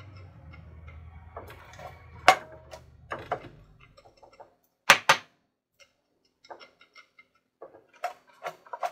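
Small spice jar of turmeric shaken and tapped over a pot of sweet potatoes: scattered light ticks and knocks, with two sharp taps close together about five seconds in. A low hum fades out about four seconds in.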